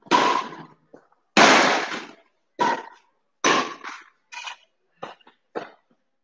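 Badminton rally: a string of sharp racket hits on the shuttlecock, roughly one a second, each dying away in an echo off the hard walls.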